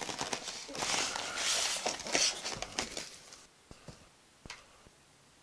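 Polystyrene foam packing scraping and rustling against a cardboard box as it is worked loose and lifted out, for about three seconds, followed by a couple of light knocks.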